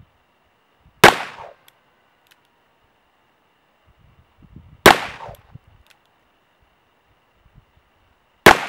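Three single shots from a Smith & Wesson 686 .357 Magnum revolver, roughly four seconds apart. Each is a sharp crack with a short echoing tail, and the third comes near the end.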